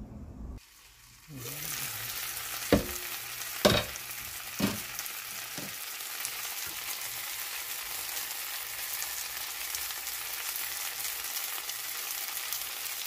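Bánh xèo (Vietnamese rice-flour pancake) frying in oil in a skillet, a steady sizzle that starts about a second in, with four sharp knocks about a second apart early in the sizzle. The pancake is being fried thin until crisp.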